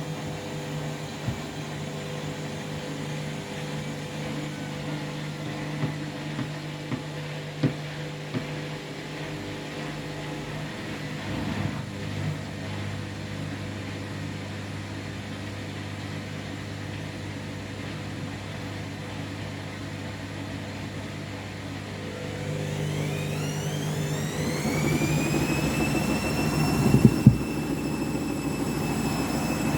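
Washing machine on its final spin with an unbalanced load of two bathrobes: the drum turns with a steady low hum and a few light knocks. About two-thirds of the way in the motor speeds up with a rising whine that levels off, and a couple of loud knocks come near the end.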